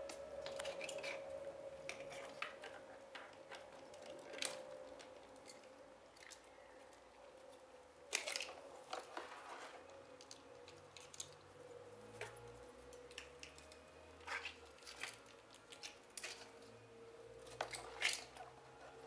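Water sloshing and splashing in a plastic tub as plastic clothespins are swished through it, with scattered sharp clicks and knocks; the loudest splashes come about eight seconds in and near the end. A faint steady hum, slowly sinking in pitch, runs underneath.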